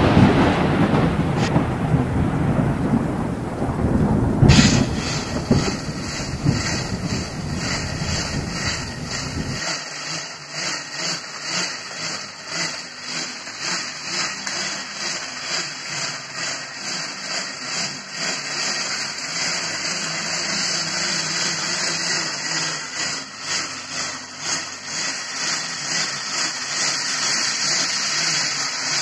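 A loud rumbling swoosh that dies away over the first few seconds. Then a bicycle's drivetrain and rear wheel, pedalled in place on a simple stationary stand, make a steady whirring that pulses about twice a second with the pedal strokes.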